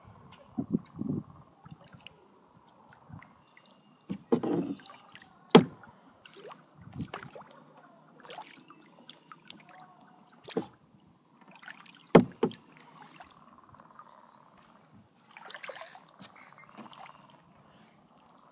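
Kayak being paddled one-handed: irregular paddle strokes dipping and splashing in the water, with a few sharp knocks scattered through.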